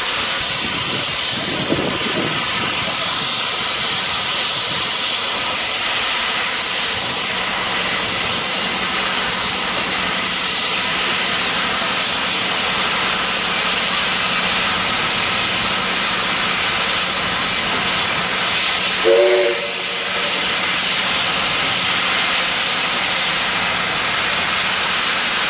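Steam locomotive 3526, a NSWGR 35 class, venting steam in a loud, steady hiss while it stands on the turntable. A brief tone sounds for about half a second about three-quarters of the way through.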